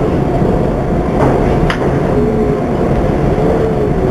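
New York City subway N train running on the tracks: a loud, steady rumble with two sharp clicks a little over a second in and a faint wavering whine in the second half.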